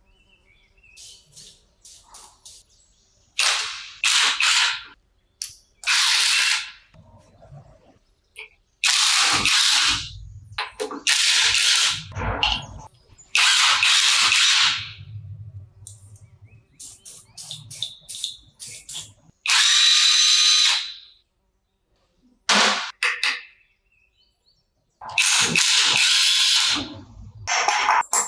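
A run of separate loud bursts, each about one to two seconds long, with quiet gaps between. They come from an aerosol spray can hissing onto a rusty cylinder and from a cordless impact driver whirring and rattling as it works the engine's cylinder head fasteners loose.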